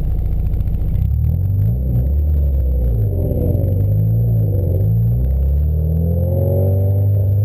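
Car engine revving under hard acceleration, its pitch rising and falling several times and then climbing steadily near the end.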